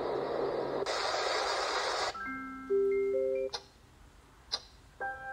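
A sunrise alarm clock's built-in speaker playing its preset sounds one after another: a steady hiss that turns brighter about a second in, then a short tune of held chime notes. After a quiet gap with two short clicks, a new chime tune starts near the end.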